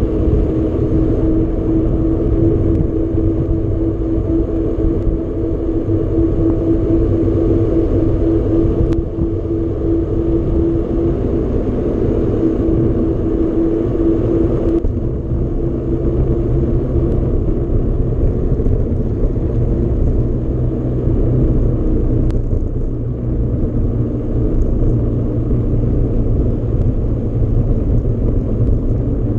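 Wind rumbling on the microphone and the rolling noise of a mountain bike in motion, with a steady hum that fades out about halfway through.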